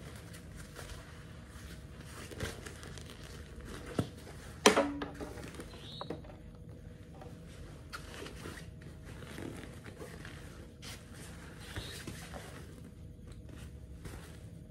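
Canvas backpack being handled: light rustling and scraping with scattered soft clicks, and one sharp knock a little under five seconds in.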